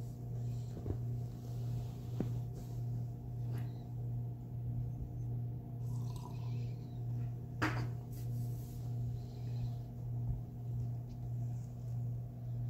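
Mother cat purring steadily while her kittens nurse, the purr swelling and fading about once a second with her breathing. A single brief click about two-thirds of the way through.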